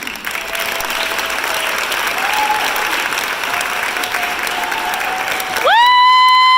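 Audience applauding steadily. Near the end, a loud high held tone rises in, holds for about a second and a half, then falls away over the clapping.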